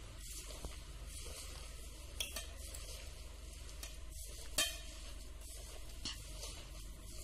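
A bare hand squishing and mixing thick, coarse rice-and-lentil batter with chopped cassia tora leaves in a steel bowl: a steady wet squelching. A few sharp clinks against the bowl come through it, the loudest about halfway through.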